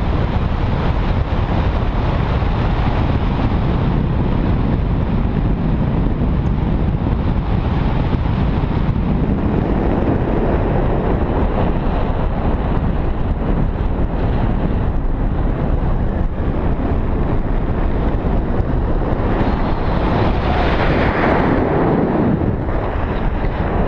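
Wind buffeting an action camera's microphone in paraglider flight: a loud, steady rumbling rush, with a stronger gust near the end.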